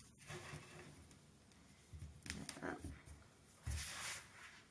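Quiet handling sounds of gloved hands working bath bomb mix and a small plastic mould pot: a few light clicks and rustles, then a louder short scraping rustle near the end as a hand scoops damp powder mix from a plastic bowl.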